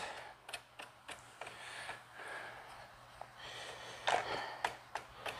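Faint scattered clicks and taps from hands working at a joint of a Whipr portable rower's metal frame as it is taken apart, with a few soft breaths, the loudest about four seconds in.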